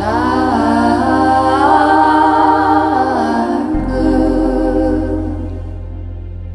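Slow orchestral ballad: a woman's sung vocal line glides between long held notes over low sustained backing. About four seconds in the voice fades and the bass moves to a new held low note.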